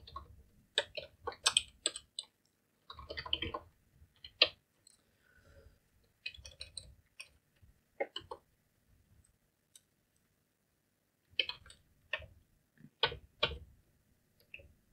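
Computer keyboard typing in short bursts of key clicks, broken by pauses, with a longer quiet gap about two-thirds of the way through.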